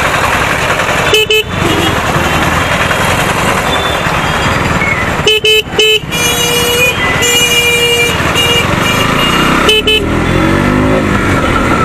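Steady wind and road noise of a moving motorcycle, cut by a vehicle horn: a short toot about a second in, three quick toots a little past halfway, then a longer held horn blast, and another toot near the end.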